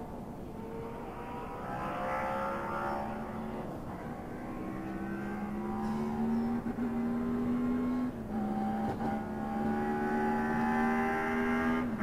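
1953 BRM V16 Mk2's twin-supercharged 1.5-litre sixteen-cylinder engine pulling under load, its note climbing slowly in pitch and growing louder, with a brief break in the note about eight seconds in.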